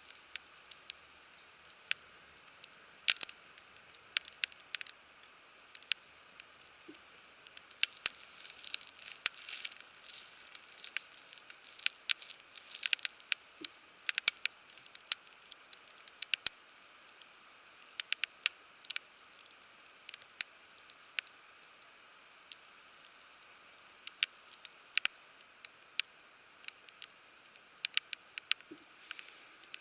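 Wood campfire crackling, with irregular sharp pops and snaps, sometimes several in quick clusters, over a faint steady hiss.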